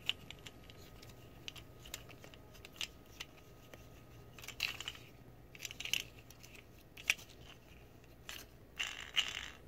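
A hard plastic Transformers action figure being handled: scattered small clicks and brief rustles as its joints, wheels and parts are moved and fitted, with one sharper click about seven seconds in.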